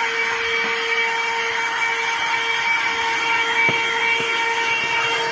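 Cordless portable vacuum cleaner running steadily with a constant motor whine, sucking dirt from a vehicle's carpet. A faint tap comes about three and a half seconds in.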